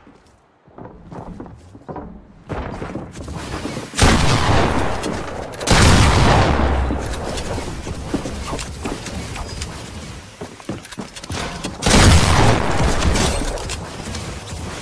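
A sound-effects sequence of explosion-like booms: scattered small knocks and crackles build up, then three heavy booms, about four seconds in, again near six and once more near twelve, each trailing off in a long rumble.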